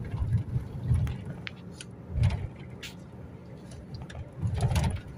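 Cabin noise of a car driving on a highway: a low rumble from the road and engine that swells and fades several times, with a few light clicks or rattles.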